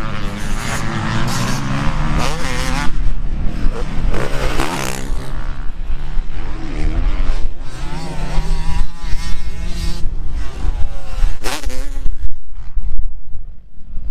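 Several motocross bikes riding a dirt track, their engines revving up and down with the pitch repeatedly rising and falling as the riders work the throttle.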